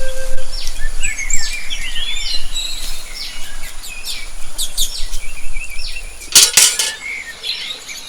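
Birds chirping and calling, many short quick chirps overlapping, with a few sharp clicks about six and a half seconds in.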